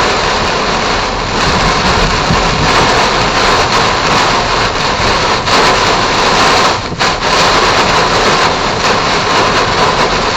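Heavy rain and wind hitting a moving car during a severe thunderstorm, heard from inside the cabin as a loud, steady rushing noise, with a brief dip about seven seconds in.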